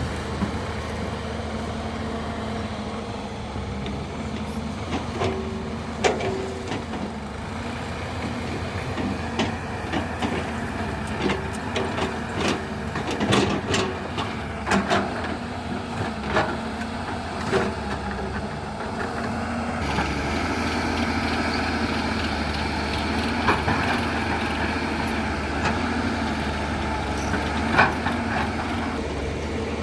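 Hyundai Robex 210-7 excavator's diesel engine running steadily under working load, with scattered knocks and clunks of the machine at work. The engine gets a little louder about two-thirds of the way in.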